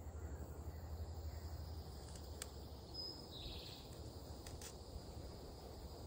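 Faint outdoor ambience: a steady high insect trill over a low rumble, with a brief higher chirp about three and a half seconds in and a few light clicks.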